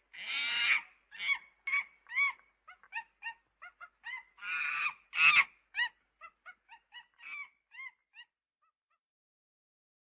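Chimpanzee calling: a quick series of short, high-pitched calls, with two longer, louder calls near the start and about five seconds in. The calls stop about eight seconds in.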